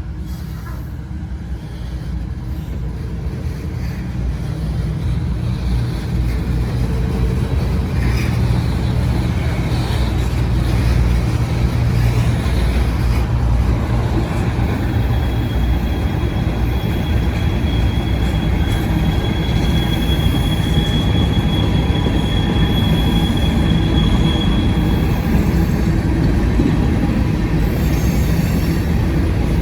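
CSX mixed freight train passing close by: a steady low rumble of wheels on rail that grows louder over the first several seconds. A thin, high, steady wheel squeal joins it from about the middle for around ten seconds.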